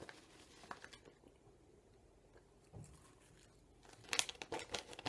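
Faint crinkling of a plastic zip-top bag and dry loose-leaf chewing tobacco as a pinch is taken out. It goes almost silent in the middle, then a short flurry of crackly rustling comes near the end.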